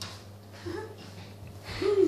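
Scottish terrier pawing and scraping its claws on wooden floorboards, with a couple of short voice sounds, the louder one near the end.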